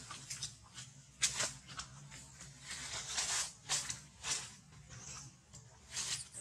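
Irregular soft rustling in short bursts, about half a dozen, as the macaques shift against each other on dry leaves. There are no calls.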